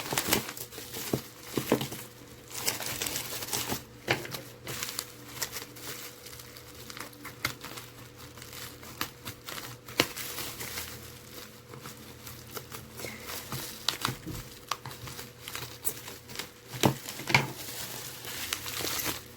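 Earbud packaging being handled: crinkling and rustling with scattered sharp clicks and taps, louder taps near the end.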